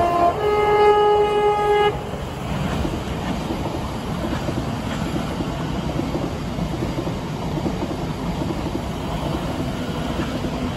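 Electric multiple-unit train horn sounding two notes, a short higher note then a longer lower one, stopping about two seconds in. It is followed by the steady rumble of electric trains running past on the main line.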